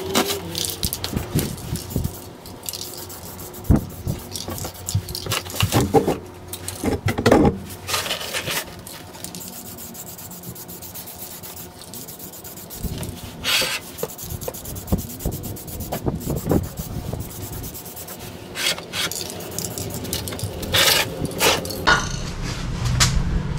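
Short hisses from an aerosol spray-paint can, mixed with irregular scraping, rubbing and knocks of a cardboard box being handled, with the box flaps folded shut near the end.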